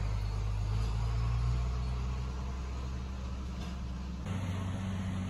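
Steady low drone of an engine running, heard from inside a pickup truck's cab; its tone changes abruptly about four seconds in.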